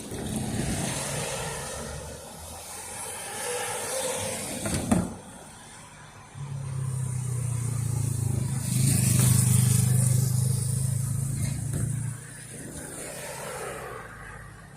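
A motor vehicle running, with a steady low engine hum for about six seconds in the middle and a single sharp knock just before it.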